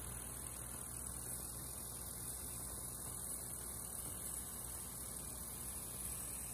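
Kubota M6040SU tractor's diesel engine running steadily as it pushes soil with its front blade: a steady low drone with a hiss over it.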